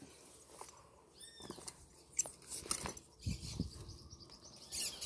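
Horse saddle being cinched by hand: irregular rustling and light clicks of leather straps and metal buckle hardware. A short squeaky chirp comes about a second in, and a few soft thuds past the middle.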